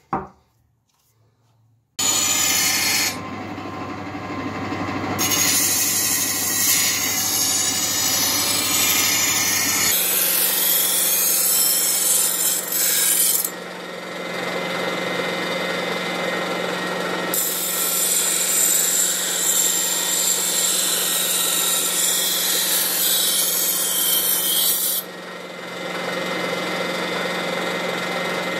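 A bench grinding and buffing machine starts abruptly about two seconds in and runs with a steady motor hum, overlaid by loud, harsh grinding and rubbing of steel against its wheels. The grinding eases twice, once in the middle and again near the end, leaving the motor spinning freely.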